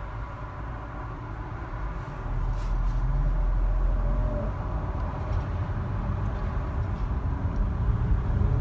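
Car engine and road rumble heard from inside the cabin in slow traffic, a steady low drone that grows louder about two seconds in.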